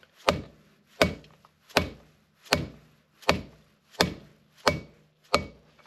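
Hammer striking a bearing driver eight times at an even, unhurried pace, driving a new front wheel bearing of a Triumph Daytona 955i into its wheel hub until it is fully seated; each blow is a short, sharp knock.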